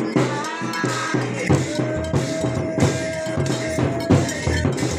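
Bhajan-kirtan devotional music: drums and small clashing metal cymbals keep a steady beat under a voice singing, with one long held note in the middle.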